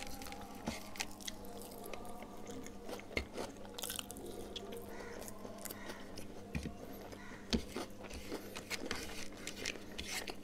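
Close-miked eating: chewing and biting on rice and a piece of chicken from chicken curry eaten by hand, with many short mouth clicks and smacks.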